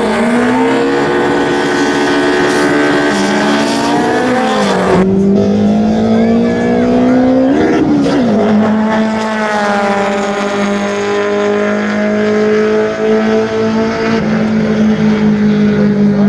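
Two drag-racing cars, a Subaru Impreza and a Toyota, accelerating hard off the line. The engine note climbs in pitch, drops at gear changes about four and eight seconds in, then holds a steady note.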